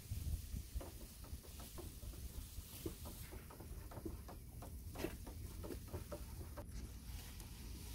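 Wooden stir stick stirring high build primer in a metal paint can, giving a run of light, irregular clicks and taps as the stick knocks and scrapes against the can.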